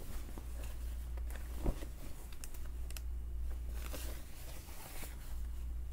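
Clothing being handled and shaken out: soft fabric rustling with scattered light clicks and one sharper knock about two seconds in, over a steady low hum.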